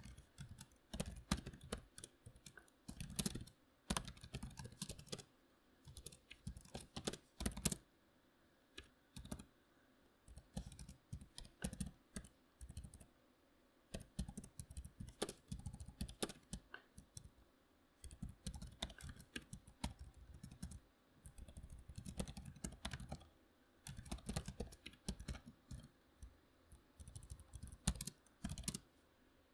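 Typing on a membrane computer keyboard: sharp key clicks in irregular bursts, broken by short pauses.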